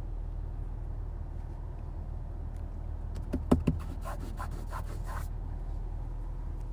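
Steady low hum from a car, with two sharp knocks about three and a half seconds in and a quick run of light clicks right after.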